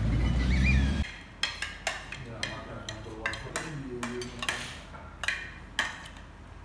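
A metal spoon clinking and scraping against a ceramic plate while someone eats, a dozen or so sharp clicks over several seconds. The first second holds a low rumble that cuts off suddenly.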